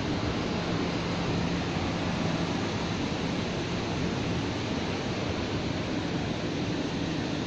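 Steady outdoor background noise: an even rush with a faint low hum underneath, and no distinct events.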